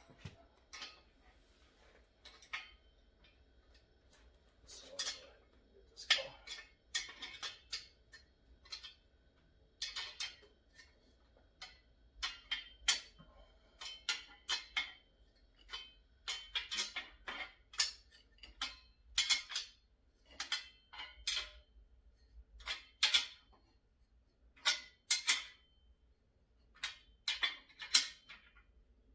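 Wrenches clinking on steel nuts and bolts as they are tightened on a table saw's tubular steel leg stand. The sound is short, irregular metallic clinks and clicks, some ringing briefly, with gaps while the wrench turns and is reset.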